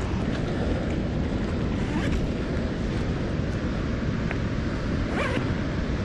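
Steady wind buffeting the microphone over the rush of river water, with a couple of faint short sounds near two and five seconds.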